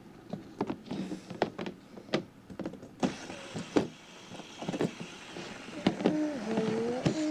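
Handling noise from toy cars and plastic track being set up: a series of separate clicks and knocks. Near the end a pitched hum sets in and steps up and down in pitch.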